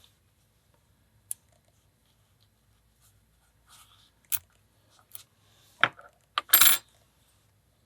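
Scattered small metallic clicks from a disassembled lock and its tools being handled, with a short rattle about six and a half seconds in, the loudest sound.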